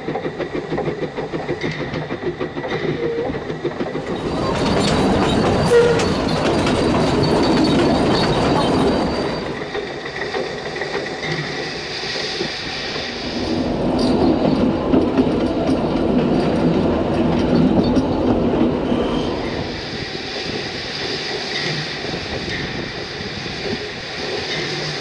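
Narrow-gauge steam train heard from the locomotive's cab, running over points and along the platform with rhythmic wheel clatter on the rail joints. A louder spell of rushing noise comes between about four and nine seconds in.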